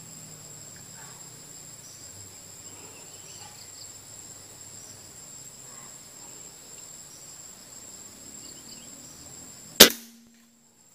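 A single sharp rifle shot near the end, with a short low ring after it. Before it, a steady high-pitched insect buzz.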